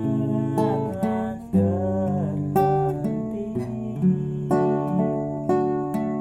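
Nylon-string classical guitar played, a run of plucked chords and single notes that ring on after each attack.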